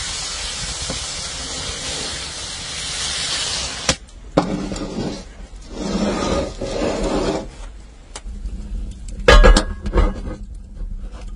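Beer poured into a hot cast-iron pan of seared meat, hissing and sizzling steadily for about four seconds before cutting off. Then come scrapes and knocks of cast iron being handled, with the loudest clanks about nine seconds in.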